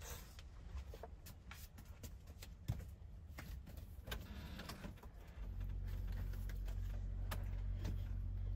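Scattered light clicks and handling noises, then a steady low mechanical hum switches on about five seconds in and keeps running.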